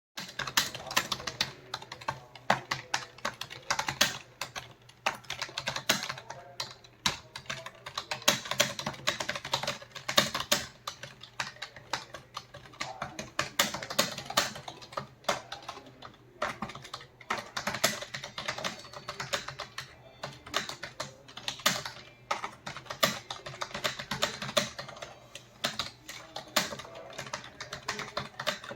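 Fast, continuous typing on a computer keyboard: a rapid, irregular patter of key clicks, several strokes a second, with the occasional louder key strike.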